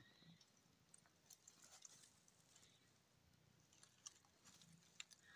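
Near silence with faint, scattered ticks and rustles of dry straw as a mother cat and her kitten shift about in their nest.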